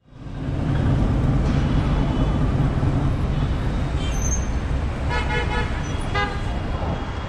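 Busy city street traffic with a steady rumble, and a vehicle horn tooting twice, about five and six seconds in.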